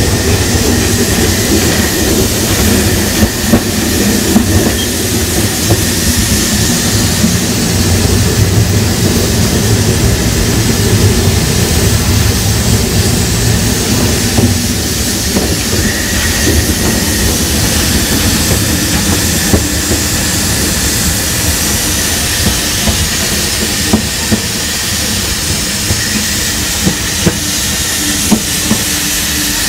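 Saxon IV K narrow-gauge steam locomotive running under steam: a steady low rumble of wheels and running gear with steam hissing and occasional sharp clicks from the rails.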